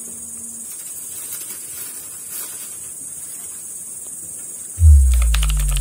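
Steady high-pitched background hiss, then about five seconds in a sudden deep bass boom that slides down in pitch, with a few sharp clicks, as electronic music starts.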